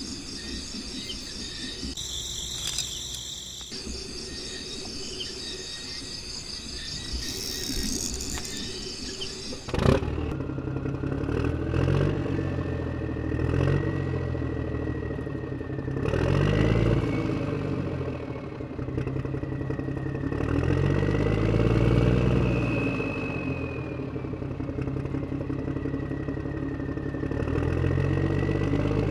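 Tractor engine sound effect, running low for the first ten seconds, then louder after a sharp click, revving up and down several times.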